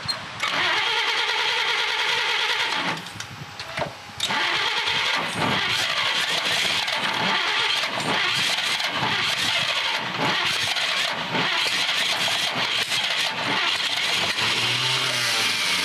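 Starter cranking the 1948 Chevrolet Fleetmaster's inline-six over in two long runs, with a short break about three seconds in, the carburettor choked by hand. The engine turns over but does not catch on this first start attempt after sitting.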